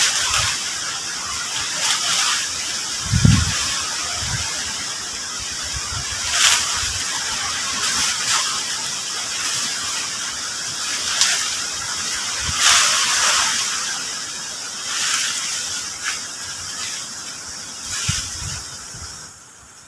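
Rustling of dry leaves and debris, with a few dull knocks, as a collapsed pole-and-tarp shelter is cleared by hand. A steady high-pitched hiss runs underneath.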